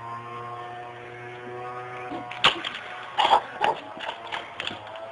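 Steady electric motor hum with a second, higher whining tone, and a run of sharp clacks and knocks in the second half.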